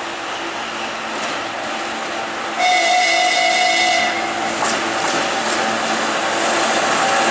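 ChME3 shunting diesel locomotive running as it approaches, its six-cylinder diesel engine and the rolling train underneath. About two and a half seconds in it gives one loud whistle signal of about a second and a half.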